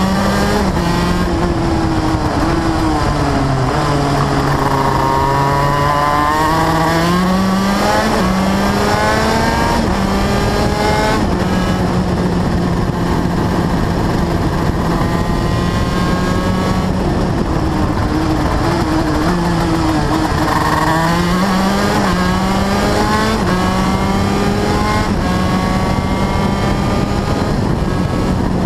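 Race car engine at full song on a circuit lap, heard from an onboard camera over steady wind rush. The engine note drops as the car slows about four seconds in, climbs back up in steps around eight to eleven seconds, holds fairly steady, then dips and rises again about twenty seconds in.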